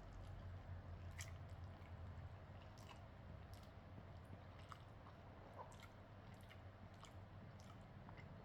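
Faint chewing with scattered small wet clicks of a person eating, over a low steady hum.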